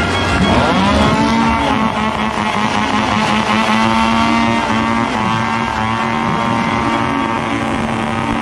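A dense motorsport crowd celebrating, with repeated loud pitched blasts that sweep sharply down and then hold a steady note, several times over.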